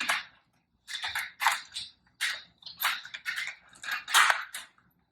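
MacBook Pro box packaging being worked open by hand: a series of about eight short, irregular crinkling scrapes.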